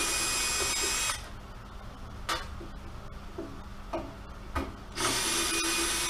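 Ridgid cordless drill/driver backing screws out of a welder's sheet-metal case: a steady high whine for about a second, then a pause with a few light clicks, then a second run starting about five seconds in.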